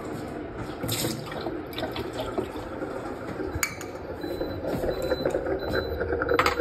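Water poured out of two small glass cups into a stainless steel sink. Sharp glass clinks follow, the loudest near the end as a cup is set down on the counter.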